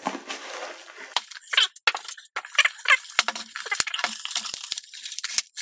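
Bubble wrap and foam packing being handled and pulled open: rapid rustling and crinkling with many sharp crackles and clicks.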